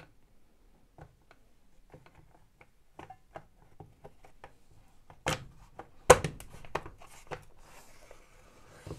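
Plastic housing halves of a Makita DX01 dust extraction unit being handled and pressed shut: light clicks and rubbing, then a few sharp plastic knocks and snaps a little past halfway, one of them clearly the loudest, as the housing closes.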